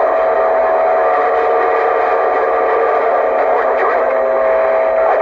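CB radio receiver carrying a keyed-up transmission with no voice: steady humming tones over a hiss of static.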